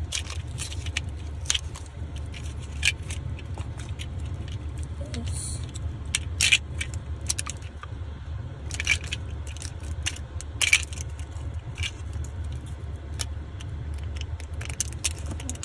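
Clear plastic wrap on a small cardboard toy box crinkling and crackling in short, irregular bursts as it is handled and peeled off, over the steady low rumble of a car interior.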